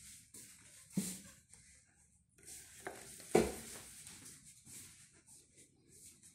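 Quiet handling and movement noise from a phone being carried around, with two sharp knocks, one about a second in and a louder one about three and a half seconds in.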